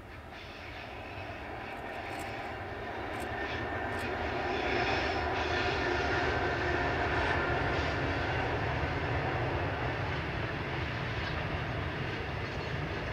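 Two Pacific National diesel-electric locomotives, an 82 class and an 81 class, hauling a coal train past, their engines' drone growing louder over the first few seconds and holding near its peak, with a few sharp clicks from the wheels on the rails. The coal wagons roll by behind them.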